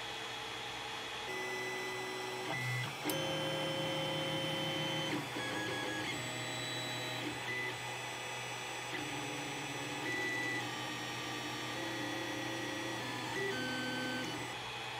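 Creality Ender 3 3D printer running a print on its stock mainboard: the stepper motors whine at pitches that jump every half second or so as the print head and bed move, over a steady fan hum. The whine cuts in about a second in. It is the loud motor whine of the stock stepper drivers, which the quiet TMC-driver board upgrade removes.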